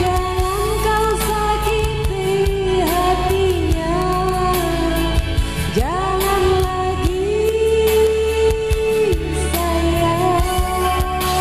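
A song played through a small hi-fi speaker system: a singing voice slides up into long held notes over a steady bass line and a drum beat.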